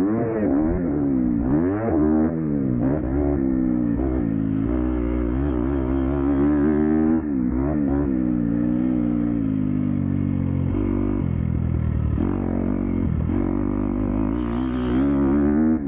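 Dirt bike engine being ridden, revving up and down so its pitch rises and falls again and again with throttle and gear changes, then running steadier and lower from about ten seconds in.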